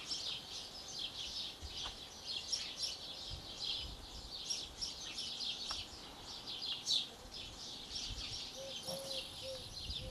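Many small birds chirping busily in the trees, a dense run of quick high chirps that never lets up, with faint low rumbles beneath.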